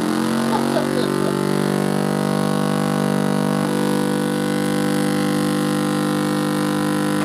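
Tube audio amplifier oscillating through its speaker: a loud, steady buzzing drone with many overtones. It is a blocking oscillation tied to the amplifier's feedback loop, which the repairer suspects comes from a cathode bypass electrolytic capacitor that has lost value.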